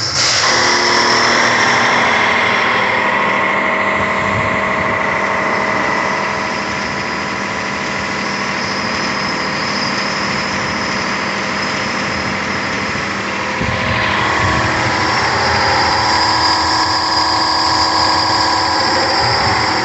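Landa VNG4-3000 gas-fired hot-water pressure washer running: a steady mechanical hum with several held tones over a constant hiss, from its pump and burner blower, shifting slightly about fourteen seconds in.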